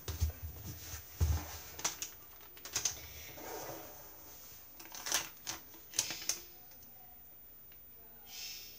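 Thin wooden kebab skewers and tape being handled on a tabletop: scattered light clicks and taps, fewer after about six seconds.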